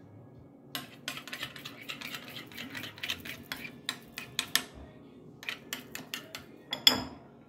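Metal spoon stirring in a ceramic bowl of creamy dressing, rapid clinks and scrapes against the bowl. There is a short pause about halfway through and a louder single clack near the end.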